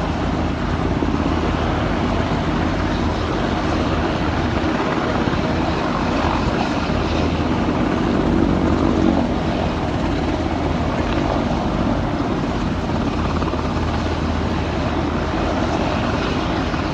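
Steady, even aircraft engine noise, a constant rushing drone with a low hum and no change in pitch or level.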